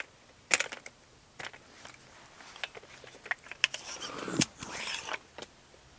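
Ballista Bat Reverse pistol crossbow being handled and readied: scattered light clicks, taps and rustling, with a sharp click about half a second in and another louder one just after four seconds.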